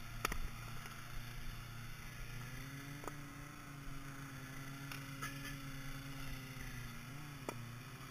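A sharp axe strike on a log on a wooden chopping block just after the start, then a few lighter knocks of split wood pieces. Under it the small engine of a gas-powered log splitter runs steadily, its note rising and holding for several seconds and then dropping again.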